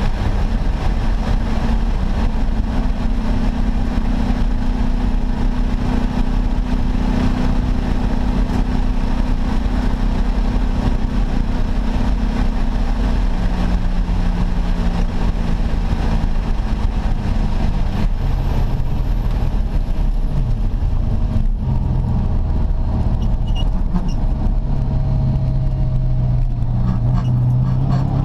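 1989 Ford Mustang Fox Body's engine at full speed on track: it holds a steady high rev for about twelve seconds, then the pitch drops in two steps as the car slows, and it climbs again near the end. A single sharp knock comes about twenty-one seconds in.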